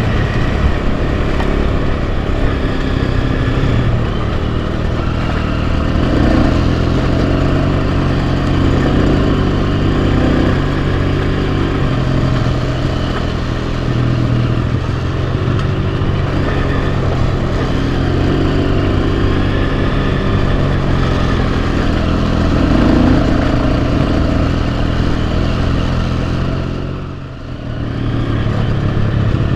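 Enduro motorcycle engine running under way, its pitch rising and falling with the throttle. The sound drops away briefly near the end, then picks up again.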